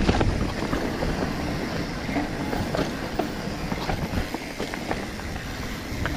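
Mountain bike rolling over rough dirt singletrack: tyres crunching and the bike and chain rattling over roots and rocks, with a steady rumble of wind and ground noise on the microphone.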